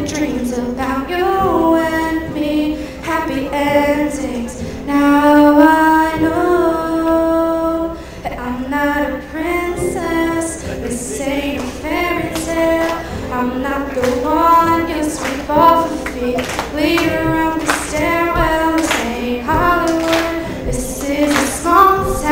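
A woman singing a melody into a handheld microphone, accompanied by a strummed acoustic guitar.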